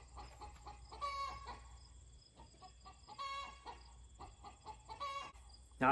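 Chickens calling excitedly: three short pitched calls about two seconds apart, with faint ticks in between.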